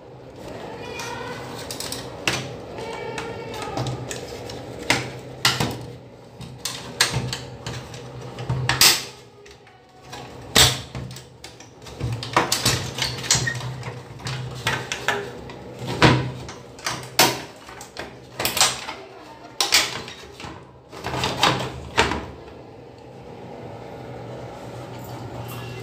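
Plastic louvered grille of a ceiling exhaust fan being handled and fitted back into place: a string of irregular sharp plastic clicks, knocks and snaps over a steady low hum.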